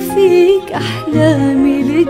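Live acoustic performance of an Arabic song: violin, nylon-string classical guitar and digital piano playing together, the melody line wavering with vibrato over sustained accompaniment.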